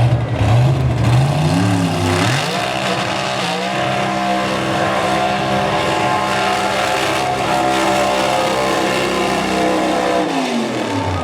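1964 Pontiac GTO drag car's V8 revving up over about two seconds, held at high, steady revs for about eight seconds, then dropping back near the end, as in a drag-racing burnout.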